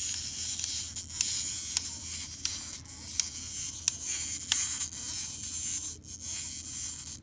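Clockwork wind-up motor of a plastic Chicken Little Happy Meal toy buzzing as it unwinds and drives the toy along, with scattered clicks. The buzz stops abruptly near the end.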